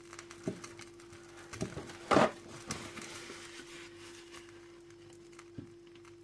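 A few light knocks and clatters of kitchenware being handled while soup is being served, the loudest about two seconds in, over a steady low hum.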